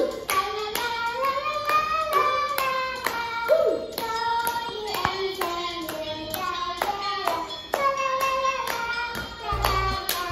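A young girl singing a song, with an adult clapping along in a steady beat.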